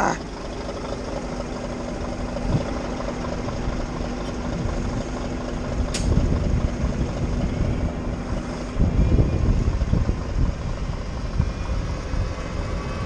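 Diesel engine running steadily as a farm tractor reverses up to a stuck truck to tow it out, growing louder and rougher about nine seconds in as it comes close. A sharp click about six seconds in.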